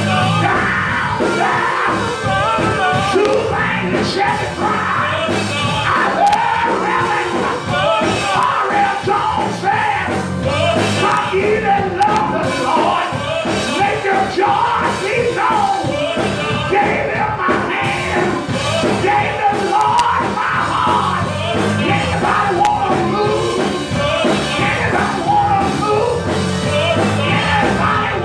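Gospel music: a man singing into a microphone over sustained keyboard chords.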